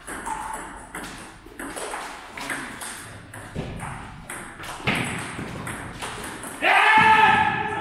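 Table tennis rally: the ball clicking sharply and repeatedly off the paddles and the table. Near the end a loud, held vocal cry cuts in over it, louder than the clicks.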